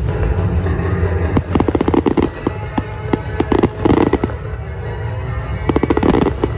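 Fireworks crackling in four quick clusters of rapid small pops over loud music.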